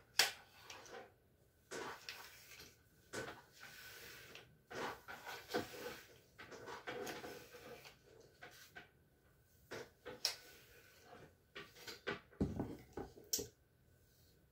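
Hair straightener handled while straightening hair: an irregular string of light clacks from the plates closing, with rustles of hair sliding through them and a low thump about twelve seconds in.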